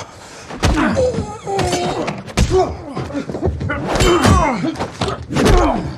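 Film fight sound effects: a quick series of punches, thuds and knocks as two men trade blows, with grunts and strained shouts between the hits.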